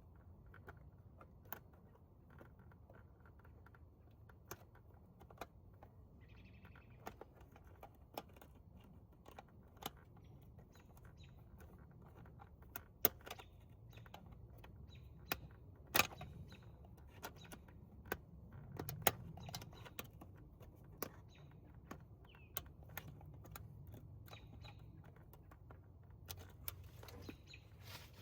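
Irregular sharp metallic clicks and clinks of pliers working spring hose clamps back onto the idle air control valve's hoses, over a faint low hum.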